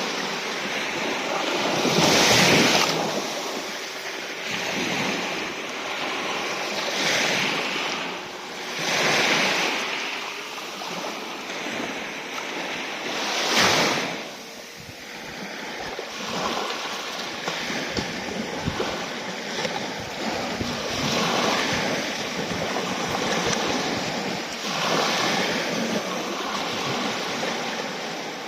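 Black Sea surf: waves breaking and washing in, a steady rush with louder surges every few seconds.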